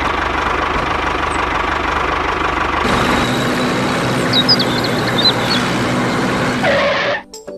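An engine running steadily. It starts and cuts off abruptly, and its note changes about three seconds in. A few bird chirps come in the middle.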